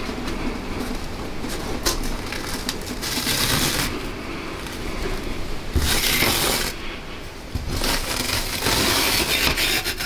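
A rotted backing sheet being peeled and torn off a rusty steel keyboard plate: a run of ripping, scraping rasps, the loudest about six seconds in and over the last two seconds.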